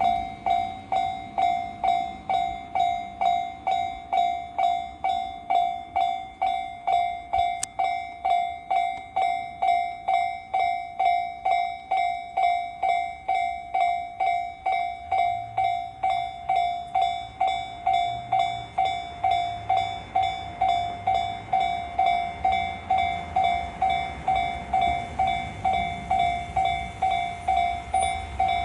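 Japanese level-crossing warning bell ringing steadily, just under two strikes a second, each strike fading quickly. A low rumble of a train builds from about halfway in.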